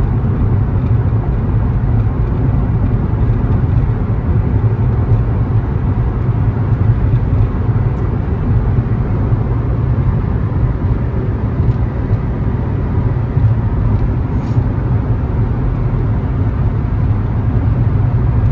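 Steady road and engine noise of a car cruising at highway speed, heard from inside the cabin: a constant low rumble with no changes.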